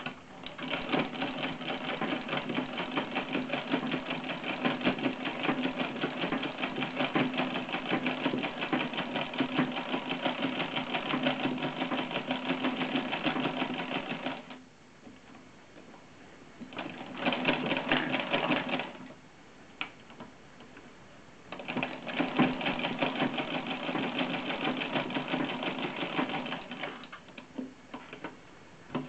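Vintage cast-iron Singer sewing machine with a ruffler attachment stitching and gathering fabric into pleats: a fast, even clatter of needle and ruffler. It runs in three spells, a long one of about fourteen seconds, a short burst of about two seconds, then about five seconds more, with pauses between.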